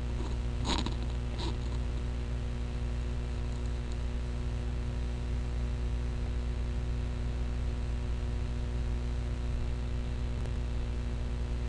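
Steady low electrical hum and hiss from the recording's background noise, with two short clicks about a second in.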